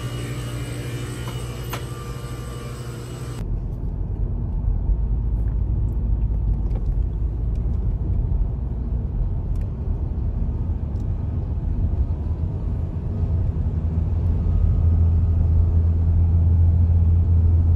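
A steady hum with several steady tones by a shop's glass-door freezer for the first few seconds. Then it cuts to the low road rumble of a car driving, heard from inside the cabin, growing louder near the end.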